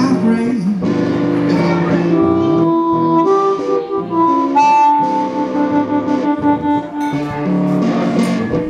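Blues harmonica solo over guitar accompaniment: long held, bending notes, one of them sustained for a couple of seconds near the middle.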